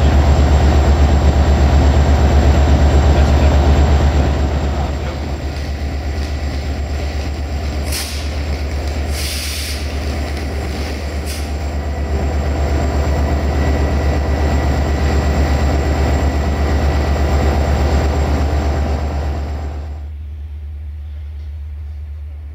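Diesel engine of a CFR Class 65 locomotive running with a deep, steady drone. There is a short hiss of released air about nine seconds in. Near the end the sound drops sharply to a fainter low hum.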